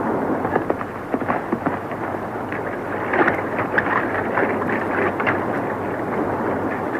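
Horses galloping into and through a shallow stream, their hooves splashing water in a dense rush of noise, with the sharpest splashes about three to five seconds in.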